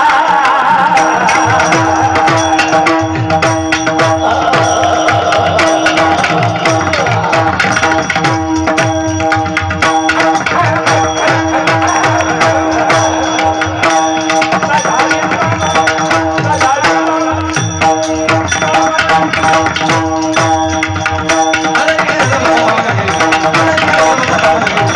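Kirtan music with fast hand-drum playing over a steady held note and a busy rhythmic clatter of strokes.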